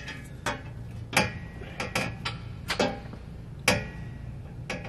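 Sharp, irregular metal clinks and taps from a stainless steel long-tube header knocking against the cylinder-head studs and flange as it is hung in place, about nine in all, over a steady low hum.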